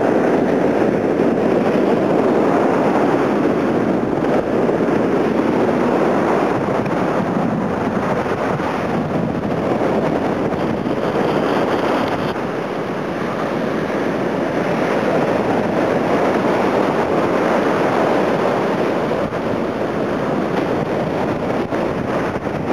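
Sea surf breaking and washing up a sandy beach, mixed with wind buffeting the microphone: a steady rushing noise.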